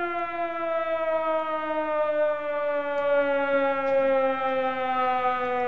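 Air-raid siren sound effect winding down: one long wailing tone that slowly falls in pitch, played as a celebration alarm for a big card pull.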